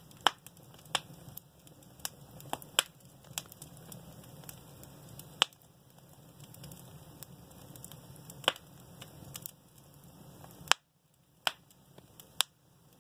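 Wood fire in a fireplace crackling, with sharp irregular pops over a low, steady hiss of burning. The background hiss cuts out abruptly for a couple of seconds near the end while the pops go on.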